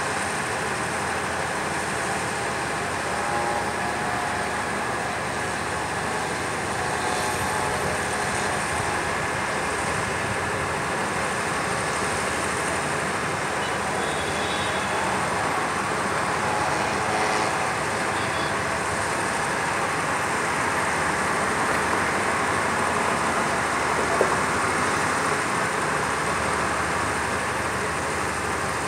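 Steady distant road traffic noise from the town below, an even hum and hiss without changes, with one brief click about 24 seconds in.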